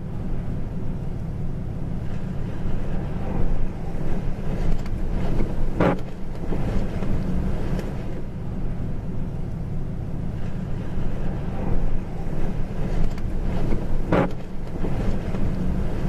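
Strong storm wind buffeting the microphone: a loud, steady low rumble, with two brief sharper bursts, about six seconds in and near the end.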